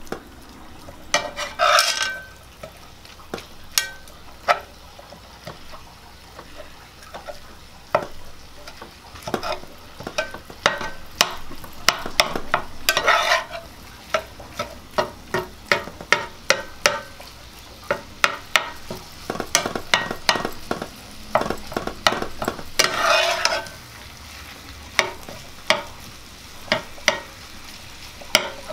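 Lean ground meat browning in an electric skillet: a low sizzle under many sharp taps and scrapes as a fork and spatula chop and stir it against the pan, with a few longer scrapes now and then.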